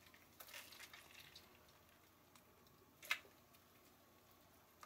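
Near silence with faint handling sounds of a gloved hand lifting pickled napa cabbage from a glass bowl: soft wet rustling in the first second, then a single sharp tap about three seconds in.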